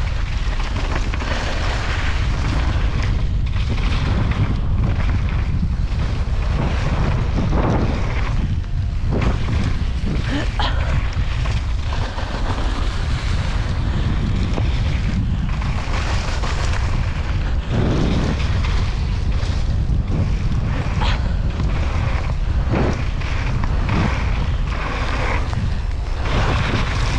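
Wind buffeting an action camera's microphone during a fast mountain-bike descent on a wet downhill trail, with tyre and trail noise and scattered knocks and rattles from the bike over rough ground.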